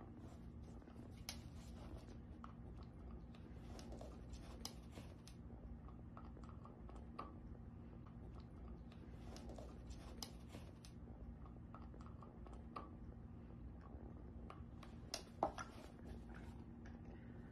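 Faint, scattered clicks and light rattles of a hard plastic lattice treat ball being nosed and rolled by a dachshund, with one sharper knock about fifteen seconds in, over a steady low room hum.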